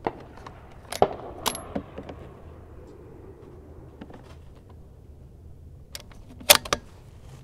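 Sharp metallic clicks and clacks of rifle cartridges being handled and a bolt-action rifle's bolt being worked, in two groups: a few about a second in and a louder cluster near the end.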